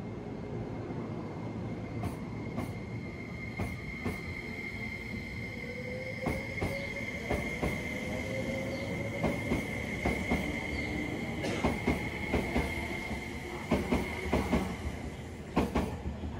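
Tobu SPACIA X (N100 series) electric limited express pulling out and gathering speed past the platform. Its motor whine rises slowly, a steady high whine runs underneath, and in the second half the wheels clack over the rail joints more and more often and more loudly as it speeds up.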